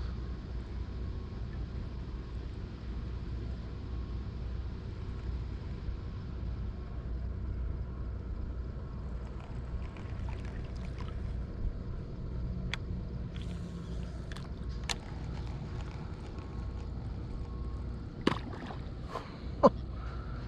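Water lapping and sloshing against a fishing kayak's hull over a steady low rumble, with a few sharp knocks and splashes near the end.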